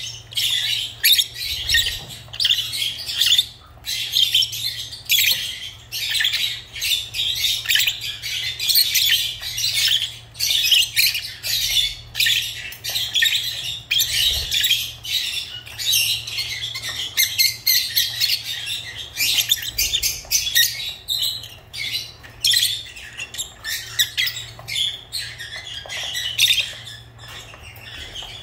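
Pet lovebirds chattering: a dense, almost continuous run of high-pitched chirps and calls in quick succession, broken by brief pauses.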